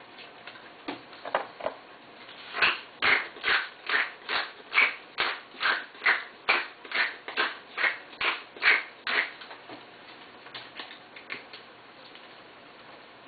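A steady run of sharp taps, about two and a half a second, lasting some six seconds. Lighter, scattered taps come before and after it.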